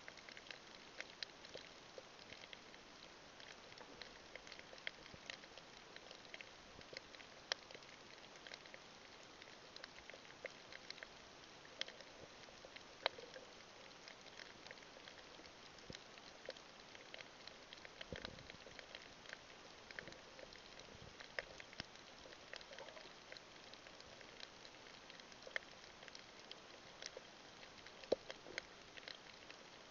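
Faint underwater crackle of many irregular clicks, several a second with now and then a sharper one, over a low hiss: the reef crackle typical of snapping shrimp on a coral reef.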